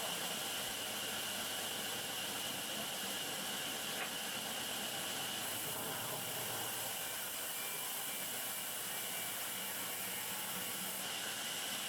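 Steady hissing noise with no clear rhythm or tone, and a faint click about four seconds in.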